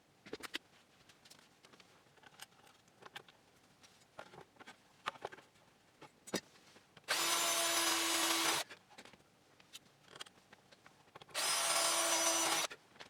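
Handheld power drill run twice, for about a second and a half each time, at a steady speed, drilling the mounting holes for an aluminium landing gear into a wooden model aircraft fuselage. Light clicks and knocks of handling the parts come before and between the runs.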